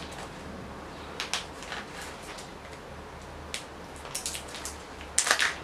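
A small package being opened by hand: scattered crinkles and rustles of the wrapping, with a louder crackling burst near the end.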